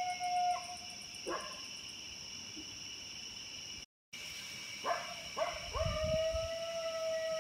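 A canine howling: a long howl held at one pitch that breaks off about half a second in, a short sharp yelp, then, after a brief total dropout, two more yelps and a second long howl that slowly falls in pitch. A steady high-pitched drone runs behind it.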